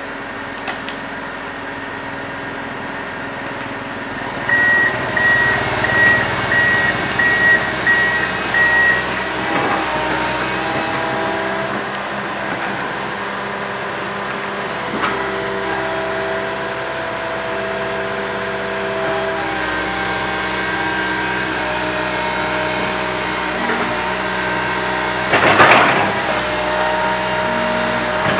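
Komatsu PC160 hydraulic excavator's diesel engine running steadily under work, with whining tones that shift in pitch as the hydraulics move the arm and bucket. A run of six short beeps comes about five seconds in, and a brief loud rush of noise near the end.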